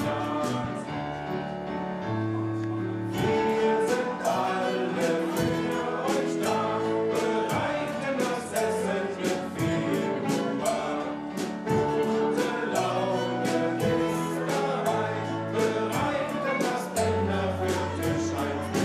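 Music with sustained chords over a moving bass line and a steady beat of sharp clicks.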